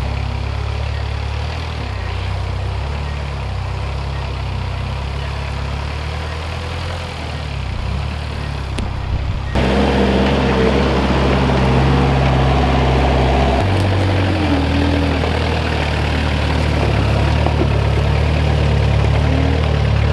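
Engine of a truck-mounted forklift running steadily as it drives carrying a load of lumber. About halfway through it suddenly becomes louder and closer, and its note shifts a few seconds later.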